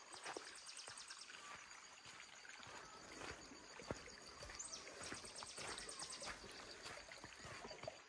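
Faint countryside ambience: a fast, even high-pitched insect trill with scattered soft footsteps, and a short high bird chirp a little past halfway.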